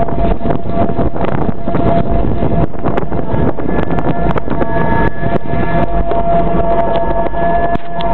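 Vekoma roller coaster train being hauled up the chain lift hill: a steady clatter of chain and anti-rollback clicks under a steady mechanical whine.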